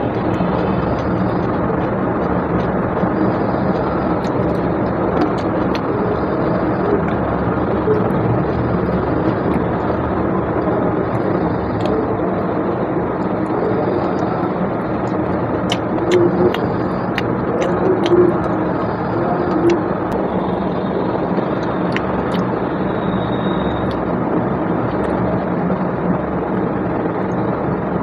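Steady mechanical noise with a low hum, continuous throughout, with a few faint clicks.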